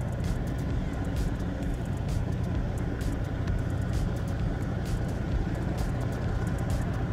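Steady low rumble of a tugboat's diesel engine running under way, with faint scattered clicks over it.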